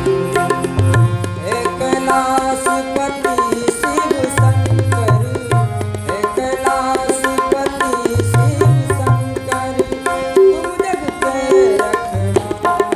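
Harmonium and tabla playing an instrumental interlude of a Hindi devotional bhajan: held reed chords and a moving harmonium melody over a continuous tabla rhythm.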